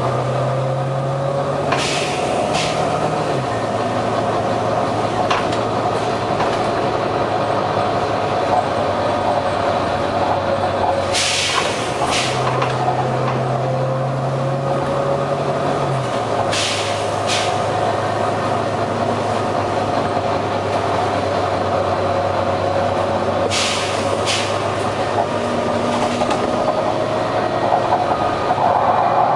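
Volvo B9TL bus's diesel engine running, its pitch stepping up and down, with short hisses every few seconds, mostly in pairs and one longer one. The hissing is the random noise from the engine that the uploader suspects is a dodgy turbo.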